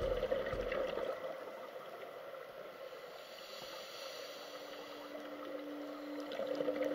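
Muffled underwater ambience heard through a dive camera's housing: a steady watery hiss, dipping a little in the middle and rising again near the end.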